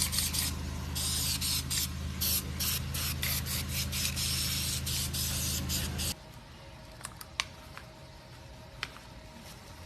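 A woodworking machine running with a steady motor hum while its cutter or abrasive rasps against wood in repeated bursts. About six seconds in, the sound cuts off abruptly to a much quieter stretch with a faint hum and a few sharp clicks.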